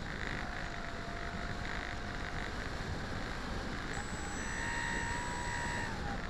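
Engine of a large-scale radio-controlled model airplane heard from a camera aboard it in low flight, under heavy wind rush on the microphone. The engine note rises a little about four seconds in and drops back near the end.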